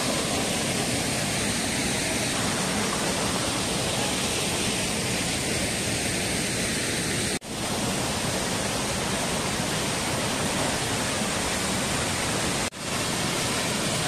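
Steady rush of water from a small waterfall and the shallow stream below it, falling with good force. The sound cuts out abruptly for a split second twice, about halfway through and near the end.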